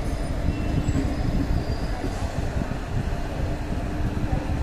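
Passenger coach of an arriving express train rolling slowly on the rails, with a steady wheel and track rumble and a faint steady hum under it.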